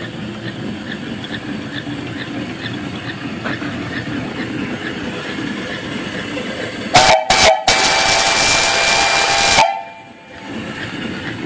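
Home-built steam donkey's 2.5-inch three-chime steam whistle blown: two short toots about seven seconds in, then one long blast of about two seconds that cuts off sharply. Before it, the running steam donkey makes a steady background noise with faint ticking.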